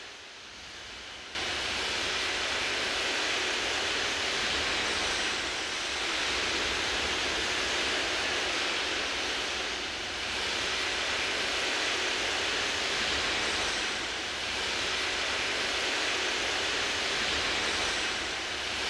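Steady rushing noise, like static or rushing water, that comes in abruptly about a second in and dips slightly about every four seconds.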